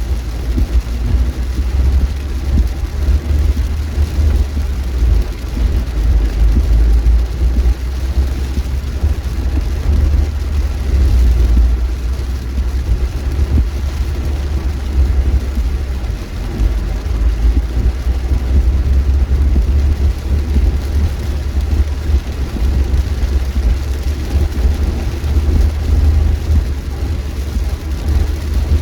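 Steady low rumble of a car driving at road speed, heard from inside the cabin: engine and tyre noise on a wet highway.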